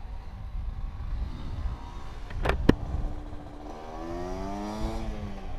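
Classic Vespa scooter's two-stroke engine pulling away under way, over low rumble; two sharp clicks come about halfway through, and near the end the engine's pitch rises and then drops back as it gains speed.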